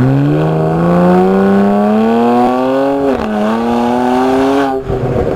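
BMW 335is twin-turbo 3.0-litre straight-six accelerating hard, heard from inside the cabin. The revs climb in first gear and drop with a shift to second about three seconds in. They climb again, then the engine note cuts off near the end as the throttle is lifted.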